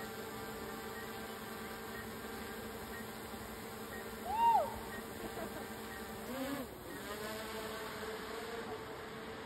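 Small quadcopter drone in flight, its propellers giving a steady buzzing whine that dips and shifts in pitch about six and a half seconds in. A short rising-and-falling cry about four and a half seconds in is the loudest sound.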